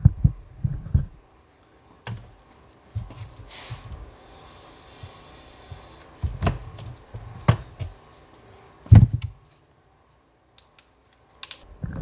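Scattered light clicks and knocks of handling. There is a soft hiss lasting about two seconds midway and a louder thump about nine seconds in.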